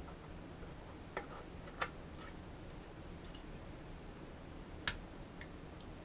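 Scattered small sharp clicks of a thin metal tool against a metal computer part being worked on, three louder ones about a second, two seconds and five seconds in, with fainter ticks between.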